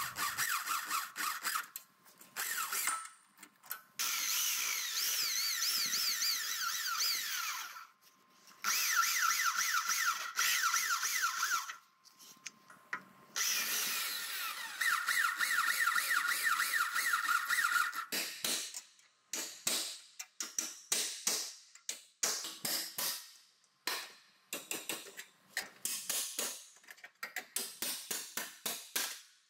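Corded Bosch power drill boring through the sheet-steel front structure of a car body in several long bursts, its whine rising and falling as the bit cuts. From about eighteen seconds in, a string of sharp metallic knocks and clicks.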